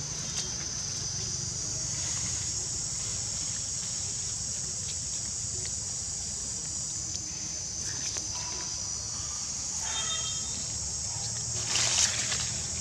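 Insects droning steadily in a high, even band, over a low rumble of outdoor background noise. Rustling noise rises near the end.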